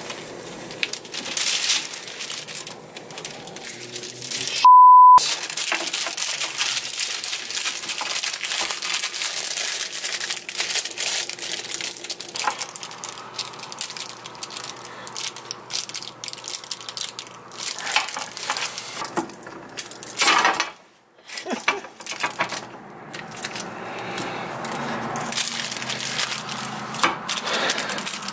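Clear plastic wrap crinkling and rustling as it is handled over a workbench, with small clicks of metal parts. About five seconds in, a short steady beep cuts in: a censor bleep.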